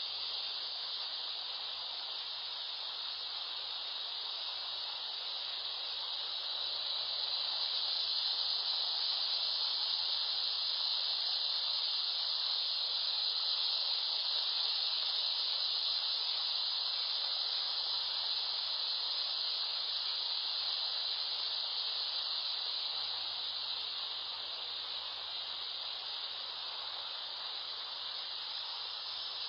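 A steady high-pitched hiss that swells a little through the middle and fades back, with no separate coughs standing out.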